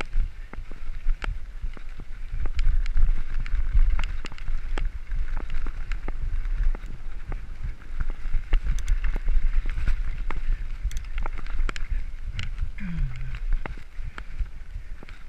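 Mountain bike rolling fast over a dirt and gravel trail, heard from a camera on the bike or rider: a steady low rumble of tyres and wind on the microphone, with frequent sharp clicks and rattles as the bike jolts over bumps.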